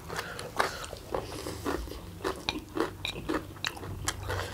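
Close-miked chewing and slurping of instant black bean noodles: an irregular run of short wet mouth smacks and clicks, several a second.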